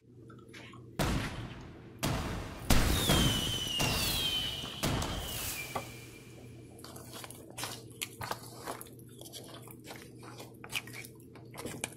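Wooden spoon stirring a pot of oxtail stew, knocking and scraping against the pot in a run of quick clicks through the second half, over a steady low hum. Earlier come a few louder knocks and a high thin tone that slides down in pitch.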